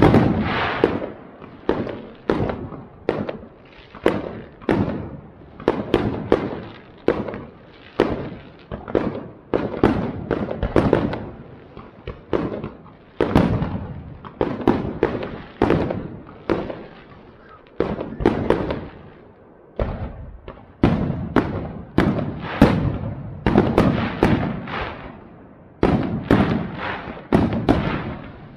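Aerial fireworks bursting in quick succession, about one sharp bang a second, each dying away in an echo, with brief lulls twice.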